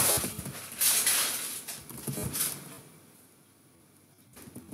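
Typing on a computer keyboard in quick bursts for the first two and a half seconds, then a few single key clicks near the end.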